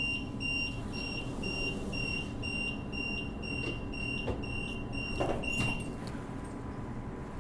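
Door-closing warning beeps on a Transperth Bombardier B-series electric train: a high electronic beep about twice a second as the sliding doors shut, with a couple of knocks from the doors around four to five seconds in. The beeping stops about six seconds in, over the train's steady low hum.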